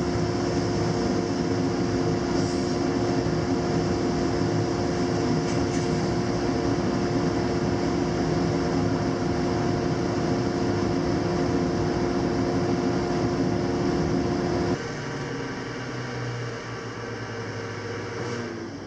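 Laguna 25-inch planer with a ShearTec II spiral cutterhead taking a pass on eastern red cedar: a loud, steady machine noise with a steady hum. About 15 seconds in it drops suddenly quieter as the cut ends, and near the end the pitch starts to fall as the machine winds down.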